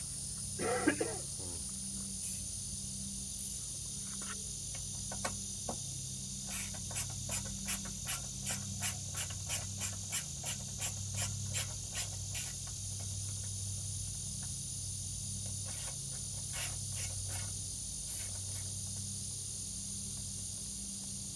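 Ratchet wrench with an 8 mm socket clicking as a self-tapping screw is worked out of the mower's seat mount, a run of sharp clicks at about three a second lasting several seconds, with a few more later.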